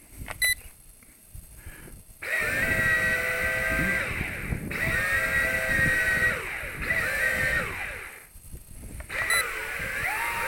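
Electric motors and propellers of a WLTOYS Q202 RC amphibian plane whining, starting about two seconds in, the pitch rising and falling as the throttle is worked, cutting out briefly twice.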